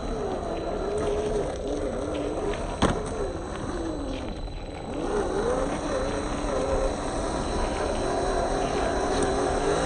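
Small electric RC crawler's 27T motor and gear drivetrain whining, the pitch rising and falling with the throttle, over a rough noisy haze from the tyres and terrain. One sharp knock about three seconds in.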